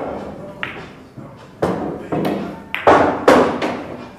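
Carom billiard balls clacking: the sharp click of the cue on the cue ball, then a string of sharp ball-on-ball and cushion knocks as the balls run around the table. The loudest pair of knocks comes about three seconds in.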